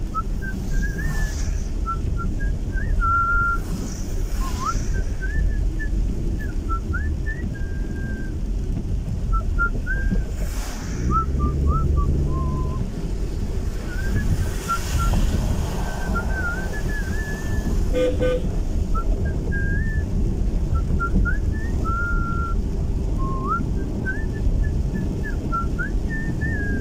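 A person whistling a tune in short, wavering notes that slide up and down, heard inside a moving car over the steady low rumble of the engine and tyres on a wet road.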